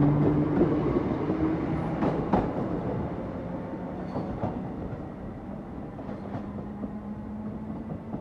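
British Rail Class 318 electric multiple unit pulling away along the platform, its rumble and motor hum fading steadily as it recedes. A few sharp clicks of the wheels over rail joints break through.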